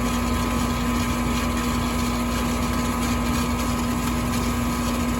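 Goodman furnace running with a steady, even hum and a faint higher whine, without change.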